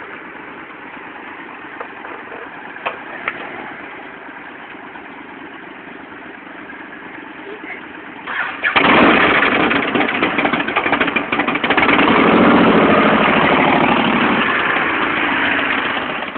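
A Yamaha motorcycle engine starts abruptly about eight seconds in and runs loudly with a pulsing rumble, easing off near the end.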